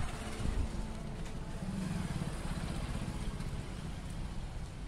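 Motorcycle engine idling, a steady low rumble with a fast, even pulse.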